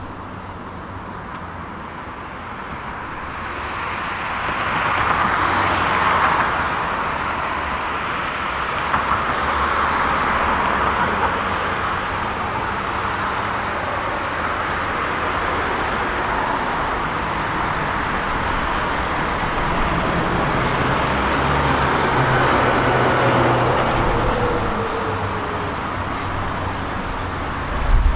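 Road traffic on a multi-lane road: cars passing close by, their tyre and engine noise swelling and fading as each goes past, with a low engine hum from heavier vehicles in the later part.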